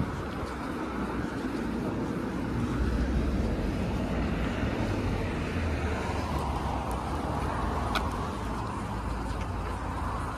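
Road traffic on the road alongside: a steady rumble of cars, with a delivery lorry going by.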